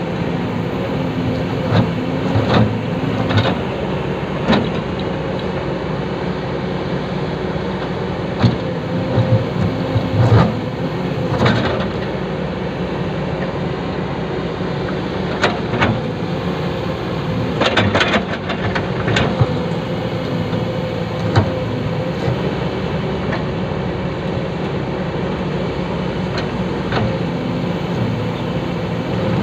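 Excavator diesel engine running steadily, with irregular sharp metallic knocks and clanks on top.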